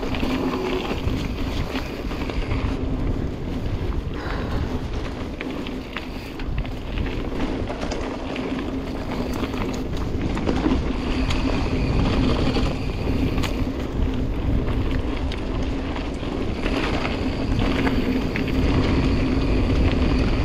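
Dartmoor Primal mountain bike rolling down a singletrack trail: wind rushing over the microphone and tyres on dirt, with a steady hum and short clicks and rattles from the bike.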